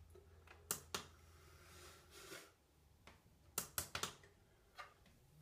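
Light clicking taps of a bare foot on a digital bathroom scale, pressing it to switch it on: two taps about a second in, then a quick run of four and a last one near the end.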